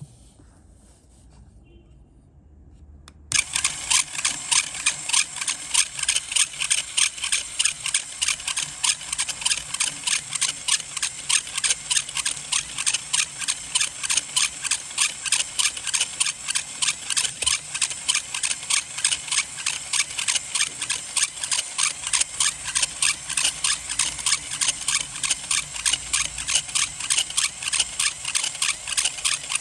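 LEGO Technic gears and turntable turning under power, making a loud, fast, evenly repeating squeaky grinding noise that starts suddenly about three seconds in and keeps a steady rhythm of several pulses a second.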